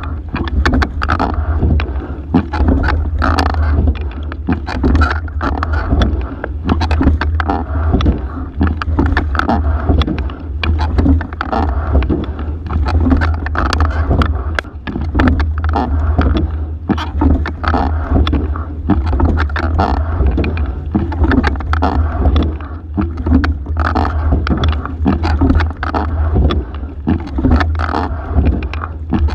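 A single scull rowed at race pace: the oars clack in their oarlocks at each stroke, and water rushes along the hull. The strokes come about every two seconds over a steady low rumble.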